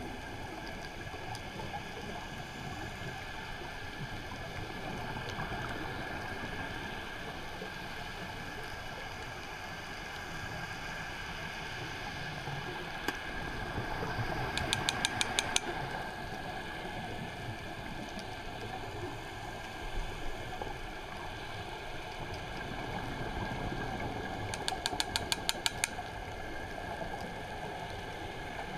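Steady underwater hiss as heard by a camera in its housing while diving, with two short runs of rapid clicks about ten seconds apart, each rising out of a brief swell in the noise.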